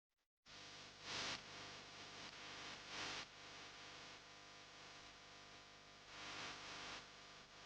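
A small electric motor running: a steady hum with an airy hiss, swelling louder three times.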